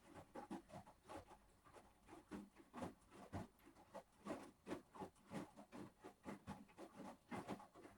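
Hotpoint Aquarius washing machine at work: faint, irregular soft knocks and sloshes, about two to three a second, that stop abruptly near the end.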